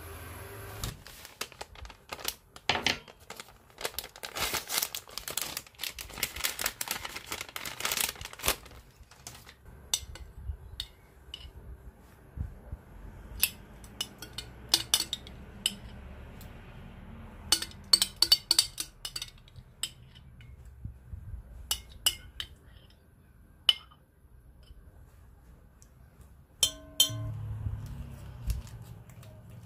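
Kitchen handling sounds: a metal fork and cookware clinking and scraping, in a dense run of quick clicks over the first several seconds, then scattered clinks against a glass bowl with some light crinkling of packets.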